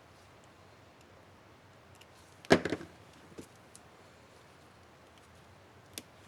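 Small plastic clicks and one sharp snap, as a laptop keycap and its plastic retainer are handled on the keyboard. The loudest snap, a quick cluster of clicks, comes about two and a half seconds in, with single fainter clicks about a second later and near the end.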